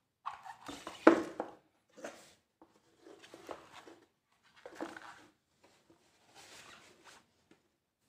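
Unboxing handling noise: packaging wrap rustling and crinkling while a mechanical keyboard is lifted out of its box and set down. The sound comes in about five separate bursts with light knocks, the loudest about a second in.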